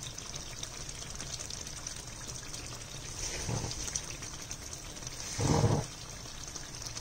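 Thick egg curry simmering in a steel pan, a steady bubbling hiss. A soft low thump comes about three and a half seconds in, and a louder one a little after five seconds.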